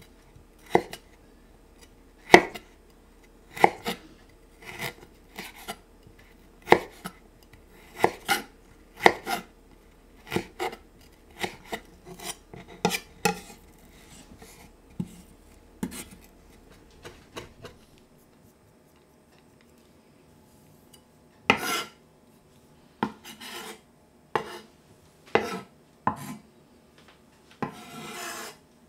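Chef's knife slicing fresh ginger on a wooden chopping board: separate crisp cuts, each knocking on the board, about one a second, with a pause of a few seconds midway. Near the end comes a short scrape of the blade across the board.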